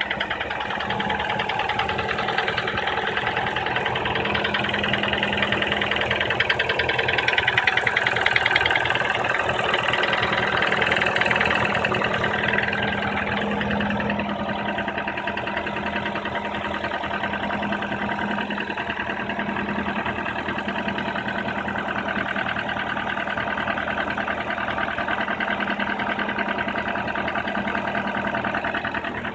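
Cold Nissan QR20DE 2.0-litre four-cylinder engine running with a rapid, rhythmic knock. It swells louder for a few seconds midway. This is a cold-engine knock that lasts until warm-up, and its cause is unknown: the owner has already replaced the timing chain and tensioner, cleaned the VVT valve and found the valve clearances in spec.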